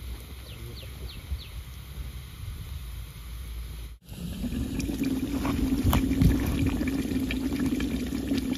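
Quiet outdoor background with a few short chirps, then, after a cut about four seconds in, country-chicken curry bubbling in a clay pot as the dough seal on its mouth is torn open, with scattered small clicks.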